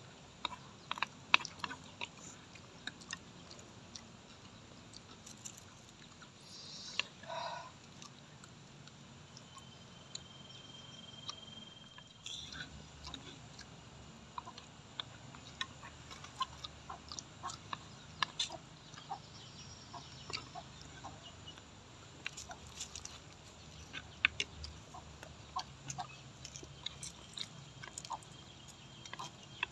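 Eating sounds: metal spoons clinking and scraping on clay plates, in many short sharp clicks, with chewing. Chickens cluck in the background, one louder call about seven seconds in.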